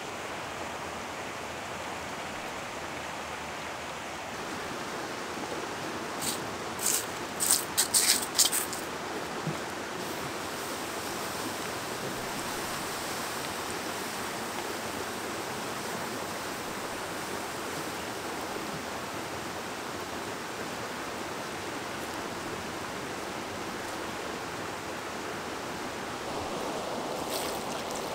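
Fast-flowing river running steadily. A quick run of sharp clicks comes about seven seconds in. Near the end, water is poured from a metal kettle onto the campfire's ashes and embers to douse it.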